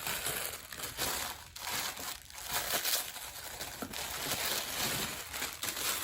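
Crinkling and rustling of protective wrapping being handled and pulled off a newly unboxed handbag, in a steady stream of irregular crackles.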